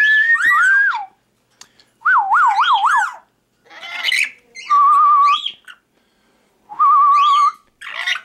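Red-lored Amazon parrot whistling loudly in short phrases: a rising whistle, a whistle swooping up and down four times, then fast warbling trills, with brief harsh calls in between.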